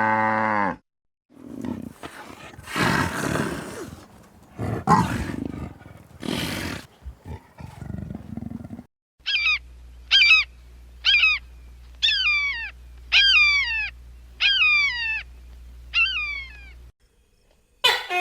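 Farm animal calls: the tail of a cow's moo, then several seconds of rough, breathy bellowing calls, then a run of about eight short high-pitched calls, each falling in pitch.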